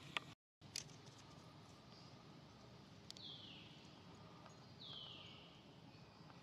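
Two high, squeaky animal calls, each falling in pitch over about half a second to a second, roughly a second and a half apart, over a faint outdoor background. A couple of sharp clicks come near the start.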